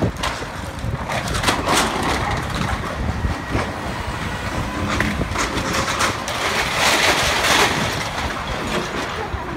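Crashing and clattering of brick and debris as a long-reach demolition excavator pulls down a building, mixed with road traffic passing close by: a bus, then a car. The loudest stretch comes about seven seconds in.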